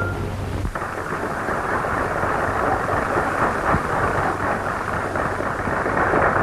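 Audience applauding, a dense crackle of many hands that starts about a second in, just after the tango orchestra's last held chord dies away. It is heard through a muffled, narrow-band 1930s film soundtrack.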